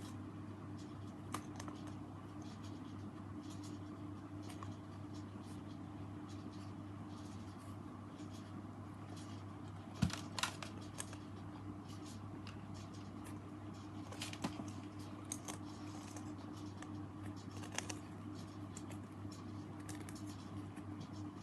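Light scratching, rustling and small taps of foam squishy toys being handled, with one sharper knock about ten seconds in, over a steady low electrical hum.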